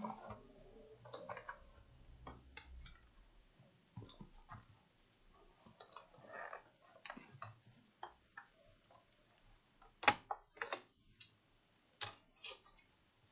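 Plastic clicks and knocks as an HP Pavilion dv6 laptop is handled and its hinge cover strip is pried off, with clips snapping loose. Scattered light clicks lead to two sharp snaps near the end.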